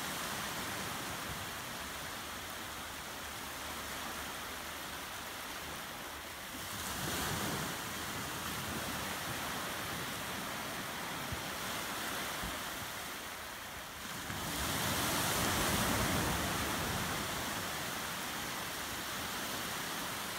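Small waves washing up a shallow sandy beach: a steady hiss of surf that swells louder twice, about seven seconds in and again around fifteen seconds in.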